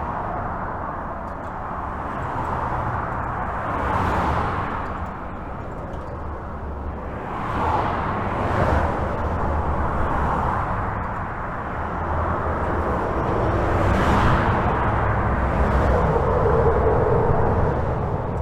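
Highway traffic heard from under a bridge: a continuous rush of tyres and engines over a low rumble, swelling as single vehicles pass every second or two. A steady drone joins near the end.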